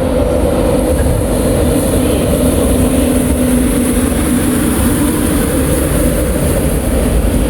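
A train's engine running with a steady drone and hum.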